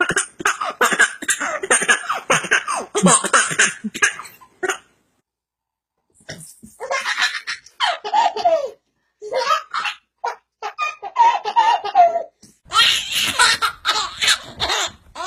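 Bursts of loud laughter, with a short silent break about five seconds in.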